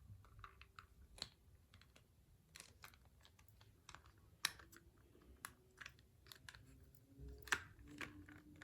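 Scattered light clicks and taps of plastic toy parts being handled as the helmet mechanism is worked, with louder clicks about four and a half seconds in and again near the end.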